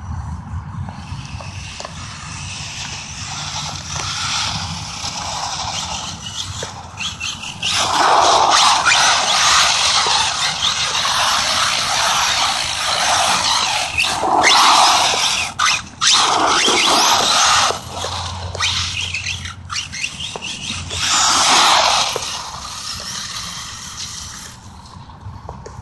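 Electric RC car with a 2700 kV four-pole brushless motor on 3S running around on slippery ground. The motor whine and tyre noise rise and fall as it drives, with several louder passes of a few seconds each through the middle.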